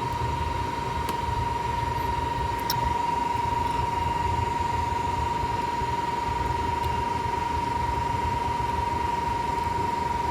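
Steady mechanical hum like fans running, with a constant high-pitched whine and a few faint clicks.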